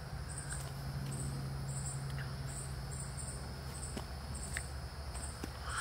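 Insects chirping in short, high-pitched pulses, about two a second, over a steady low hum.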